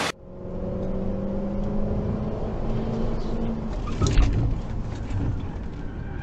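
Car engine and road noise heard from inside a moving car, a steady drone with the engine's pitch shifting a little. A sharp thump about four seconds in.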